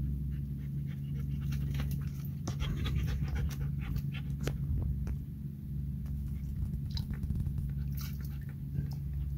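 A dog panting quickly close to the microphone, over a steady low hum.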